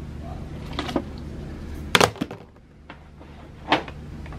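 Several sharp plastic knocks as items such as a litter scoop are dropped into a plastic shopping cart and litter box, the loudest about two seconds in. A low steady rumble underneath stops about halfway through.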